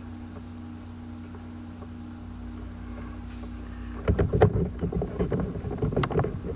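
Steady low hum, then from about four seconds in a run of loud, irregular knocks, clicks and rubbing: hands working a plastic action figure and its accessories right next to the microphone.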